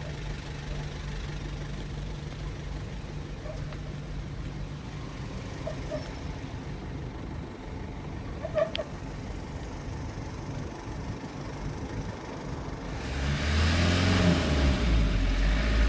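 Car engine running steadily, with a single sharp click a little past halfway. Near the end the engine noise grows much louder, its pitch sliding.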